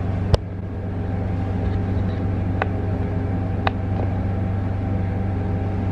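Steady low machine hum, with three sharp clicks over it: a loud one just after the start, then two fainter ones about a second apart near the middle.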